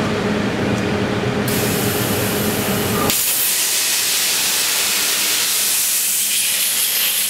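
CNC plasma cutter's torch over a 50 mm titanium plate: a machine hum, a high hiss joining about a second and a half in, then about three seconds in the arc strikes and a strong, steady hiss of the plasma cutting into the plate runs on.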